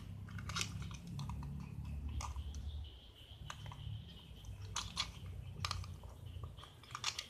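Scattered small clicks and crinkles from a roll of adhesive tape and a pair of scissors being handled, over a low steady hum.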